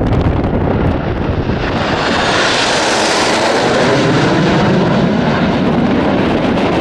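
Formation of BAE Hawk T1 jets flying over, their Adour turbofans a loud, even rushing noise that swells about a second and a half in and is brightest around three seconds. Wind rumbles on the microphone underneath.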